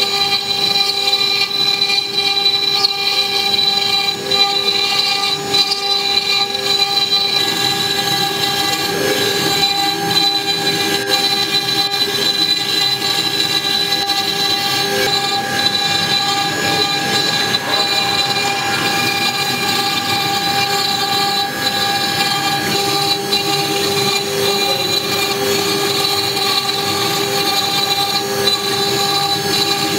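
The spindle of a CNC-6090 router runs with a steady high-pitched whine as its end mill cuts Dagestan sandstone under coolant, with a rough grinding noise from the cut beneath it.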